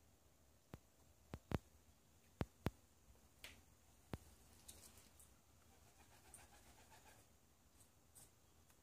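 Near silence broken by about seven sharp clicks or taps in the first half, then a faint quick fluttering rustle.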